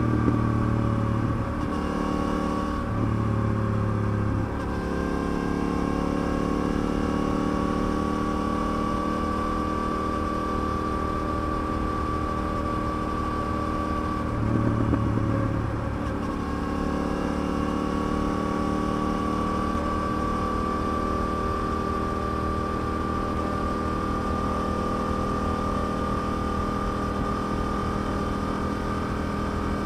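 Yamaha TDM900's parallel-twin engine running at a steady road cruise, heard from the rider's seat. The engine note shifts briefly near the start, around three seconds in, and around fifteen seconds in, as the throttle changes.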